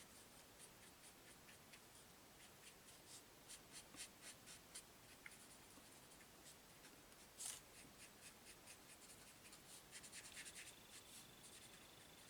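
Faint, quick scratchy strokes of a blender pen's tip on paper, blending watercolour-pencil colour, with one louder stroke about halfway through.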